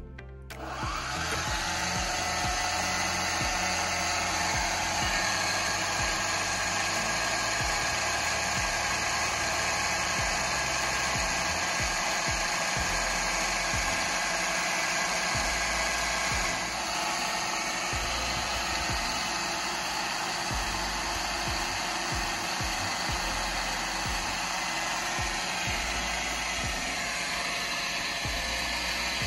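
Small Visuo folding quadcopter drone's motors and propellers spinning up about half a second in, then running with a steady whine; the pitch shifts a little about halfway through and again near the end.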